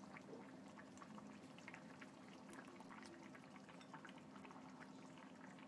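Faint bubbling of Korean soft-tofu kimchi stew simmering in a stone pot: small irregular pops at the edge of hearing, over a faint steady low hum.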